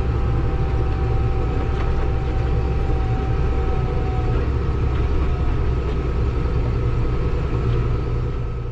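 Steady engine and road noise inside a moving vehicle's cab: a deep hum with a faint high whine over it. It fades away right at the end.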